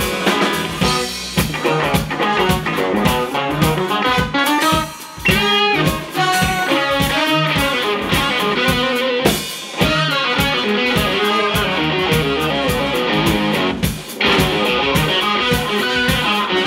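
Live band music: an electric guitar played over an electric bass and a drum kit. The music breaks off briefly about five seconds in and again near fourteen seconds.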